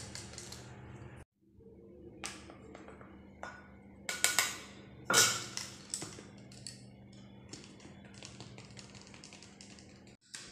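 Irregular soft taps and scratchy clicks of a plastic hand sieve being shaken and tapped to sift gram flour onto a steel plate, with a few louder taps around the middle.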